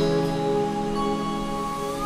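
Soft instrumental background music with long held notes; a higher note comes in about a second in.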